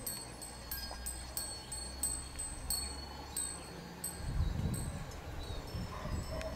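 Small metal bells hanging from the pagoda spire finials tinkling in the breeze: many irregular, light strikes, each ringing briefly with high, clear tones. A low rumble underneath swells about four seconds in.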